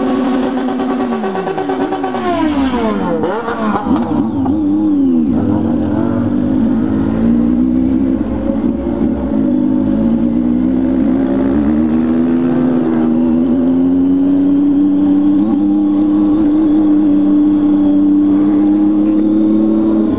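Motorcycle engine and exhaust under way at steady revs. Between about one and three seconds in the revs fall away sharply as the throttle is rolled off; after a few seconds of wavering they hold steady and slowly climb again.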